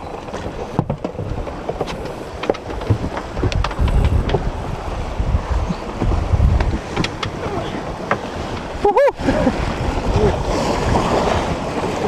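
Wind buffeting the microphone and water rushing along the hull of a small sailboat under sail, an uneven rumbling hiss with a few light knocks from the deck gear.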